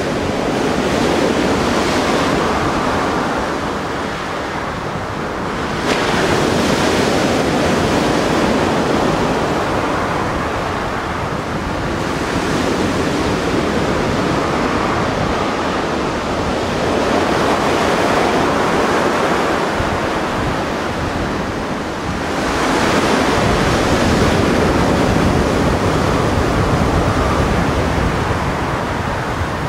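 Mediterranean surf breaking and washing on the shore, swelling and easing every few seconds, with wind rumbling on the microphone.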